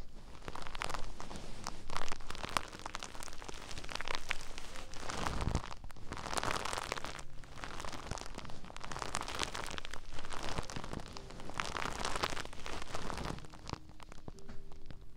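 Hands rubbing and scratching a fluffy fleece fabric close to the microphone: a crackling rustle that swells and eases in waves every two to three seconds.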